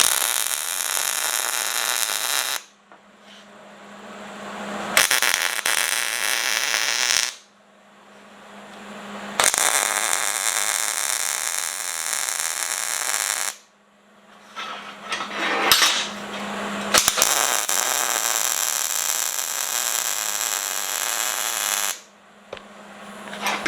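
Welding the steel scrolls onto the flat stock: four arc welds of two to five seconds each, a steady crackling sizzle that starts and stops abruptly. A few short pops fall between them, and a steady low hum fills the pauses.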